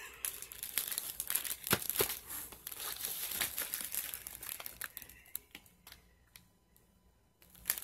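Clear plastic bag crinkling and crackling as it is handled, with scattered clicks. The rustling dies away about five seconds in and starts again just at the end.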